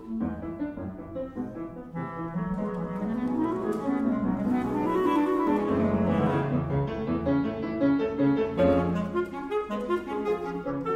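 Music: a clarinet playing fast rising and falling runs over piano accompaniment.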